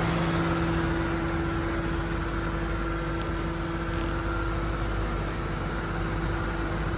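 Qvale Mangusta's Ford 4.6-litre V8 idling steadily with the air conditioning on, a constant even hum.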